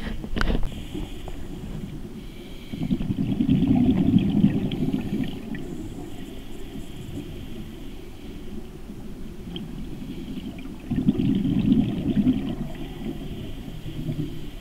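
Scuba diver's regulator breathing underwater: two long bubbling rushes of exhaled air, a few seconds in and again near the end, with a faint hiss of inhaling between them. A sharp knock right at the start.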